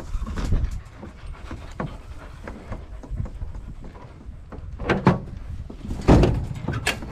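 Hounds stirring in a pickup's slatted metal dog box, with scattered knocks and rattles against the box and two louder thumps about five and six seconds in.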